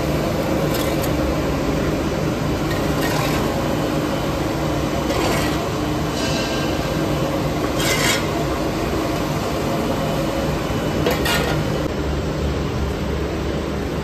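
Continuous rotary carbonization furnace plant running with a steady machinery hum. A rasping scrape recurs about every two to three seconds, five times in all.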